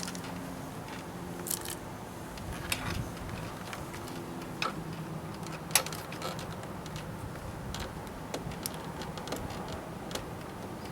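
Scattered light clicks and taps, irregularly spaced, a sharper one a little before the middle, over a faint steady low hum.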